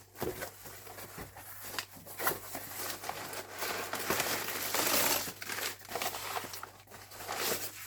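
Packaging being unwrapped by hand: irregular crinkling and crackling of wrapping, with small clicks. It is loudest about four to five seconds in.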